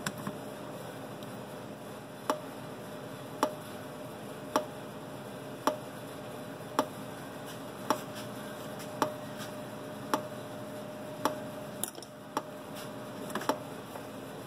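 Dyna Charge 909 solid-state electric fence charger pulsing, a sharp click about once a second, each click one pulse of the charger.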